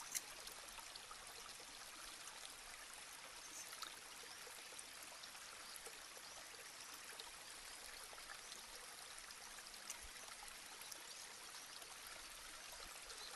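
Near silence: a steady faint hiss of room tone, with a few very faint ticks.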